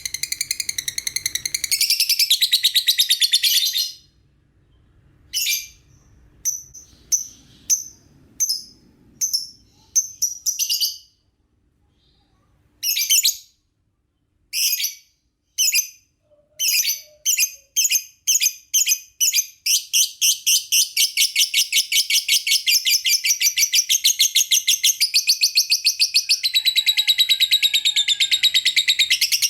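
Lovebird chirping shrilly. A fast run of chirps opens, then comes a string of separate short chirps with pauses between them, and from a little over halfway in a long, rapid, unbroken chattering run.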